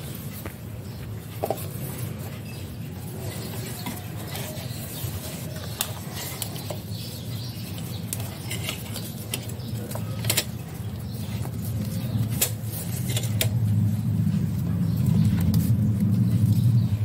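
Cloth being handled and fastened over a jar rim with a rubber band: rustling with scattered sharp clicks, over a low steady rumble that grows louder in the last few seconds.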